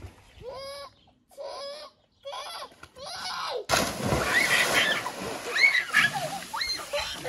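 A man jumping into a swimming pool: a sudden loud splash about halfway through, then the water sloshing and churning. Before the splash come four short calls, and a few short high squeals sound over the splashing water.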